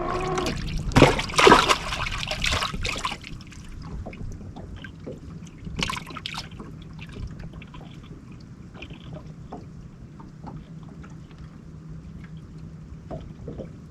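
Water splashing and lapping against a small fishing boat's hull, loudest for the first few seconds, then quieter lapping with small knocks over a steady low hum.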